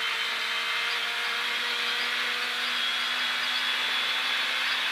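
Citroën Saxo rally car's engine running flat out at a steady pitch, heard inside the cabin with road and tyre noise.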